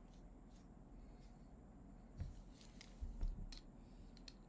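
Quiet room tone with a faint low hum, a few small clicks, and two soft low thumps about two and three seconds in.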